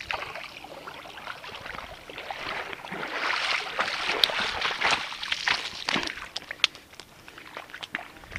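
Splashing and sloshing of feet wading through shallow water, louder from about three to six seconds in, with a few sharp clicks.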